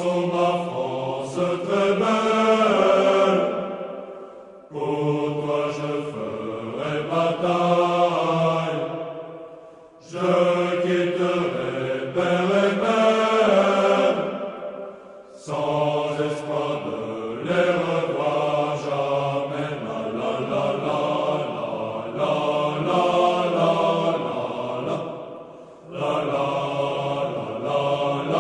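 Background music of sung vocal phrases, each lasting several seconds, with short breaks between them.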